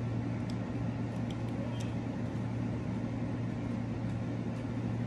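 Steady low hum of room noise, likely from the spinning ceiling fan. A few faint light ticks come in the first two seconds as eyeglass frames are handled.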